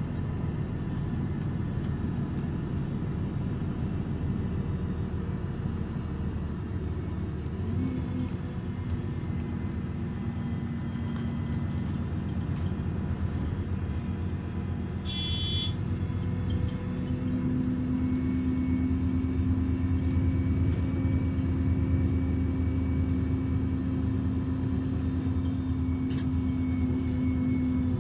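MAN Lion's City city bus engine idling while the bus stands still, a steady low hum with a whine that grows louder a little past halfway. A brief high chirp sounds just past the middle.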